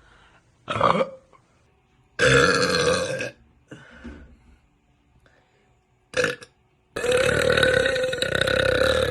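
Women burping, a series of separate burps: a short one, a second-long one, a couple of faint or brief ones, then a long drawn-out burp over the last two seconds.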